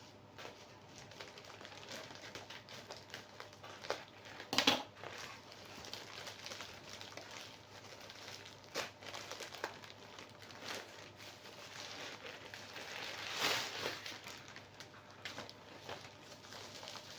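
Sandal packaging being handled: irregular crinkling and rustling, with louder crackles about four and a half seconds in and again about three-quarters of the way through.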